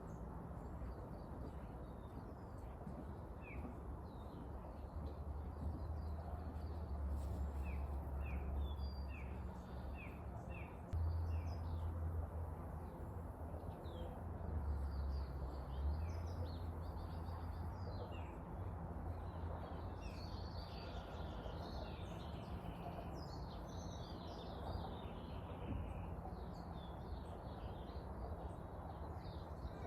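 Wild birds chirping and singing: runs of short falling chirps a few seconds in, then busier song phrases later. A low rumble underlies them throughout and is the loudest sound.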